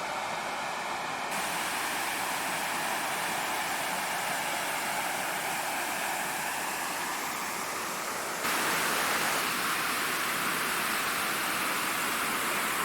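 Waterfall rushing as a steady, even wash of falling water. The sound changes abruptly about a second in, then turns louder and brighter about eight and a half seconds in.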